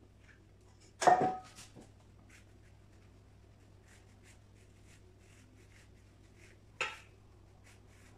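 A loud clatter of metal kitchenware with a brief ring about a second in, then faint short scraping strokes of a serrated knife sawing horizontally through a sponge cake layer, and a second sharp knock near the end.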